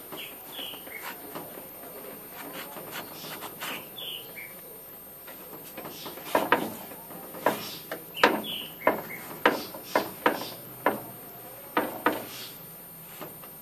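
Cloth and scouring pad rubbing over the enamel top and burner ring of an old electric hot plate: soft wiping at first, then from about six seconds in a run of sharp scrubbing strokes, about one or two a second.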